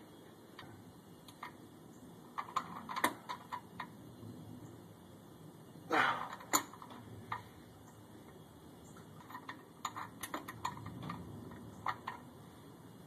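Socket wrench working the oil drain bolt back into the oil pan: irregular small metallic clicks and taps in short clusters, the loudest about six seconds in.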